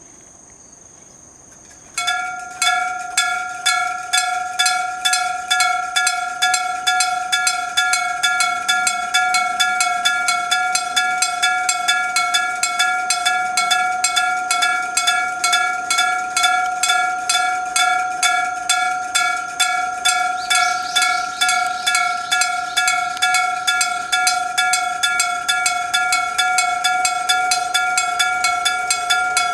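Electric gong-type level-crossing bell (denshō style) starting about two seconds in and clanging in fast, even strikes, each a single ringing metallic note with overtones. Before it starts, insects chirp faintly.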